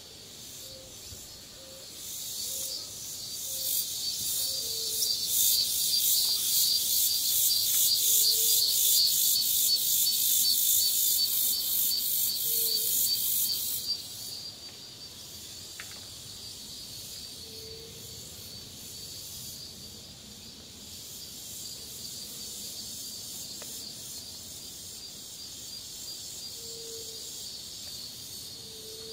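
A cicada singing: a loud, rapidly pulsing high buzz that swells a couple of seconds in and cuts off suddenly about halfway through. It sits over a steady high insect chorus, with a soft low note repeating every few seconds.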